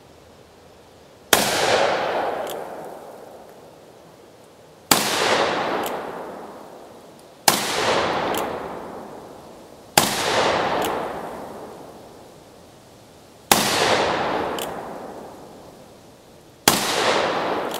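Six shots from a Pietta 1873 single-action revolver in .44 Magnum, fired slowly with about two and a half to three and a half seconds between them. Each shot is followed by a long fading echo and a faint second crack about a second later.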